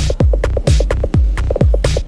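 Electronic dance music with a steady kick-drum beat and repeating high percussion hits.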